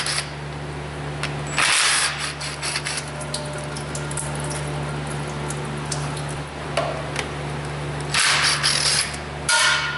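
Cordless power driver with a 10 mm socket spinning out transmission strainer bolts in short bursts: one about two seconds in, another around eight seconds in, and a last one near the end, over a steady low hum.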